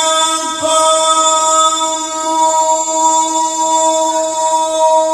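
A man reciting the Quran in the melodic tilawah style, holding one long, steady note with a brief catch about half a second in.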